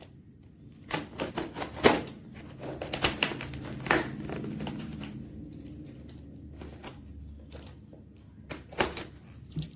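A book parcel's packaging being opened by hand: irregular rustling, crinkling and tearing with scattered sharp clicks, in two busy spells with a quieter stretch between.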